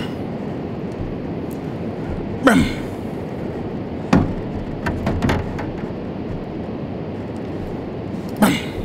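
A few short, sharp knocks and bumps, about five in all, over a steady low rumble. The knocks are typical of handling gear in a small boat.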